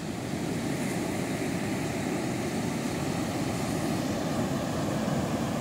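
Steady, even rush of breaking surf from big waves.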